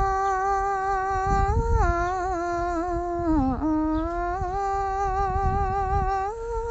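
A high voice humming long, drawn-out notes, mostly held on one pitch, with a sagging dip about three and a half seconds in and a step up to a higher note near the end.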